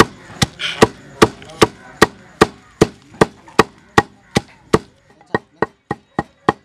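Wooden pestle pounding dried red chillies in a stone mortar, a steady thud about two or three times a second. About five seconds in, the strokes turn lighter and quicker.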